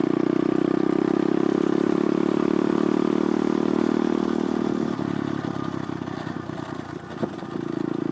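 Geared pit bike engine running steadily under way, easing off about five seconds in, with a short clunk near seven seconds before it picks up again near the end.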